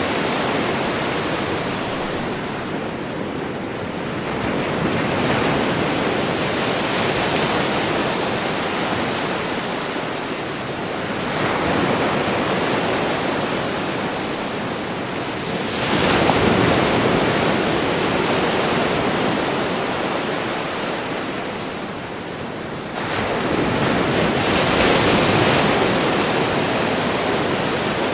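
Sea waves breaking on a shore and washing back, a new surge about every five to seven seconds, four in all.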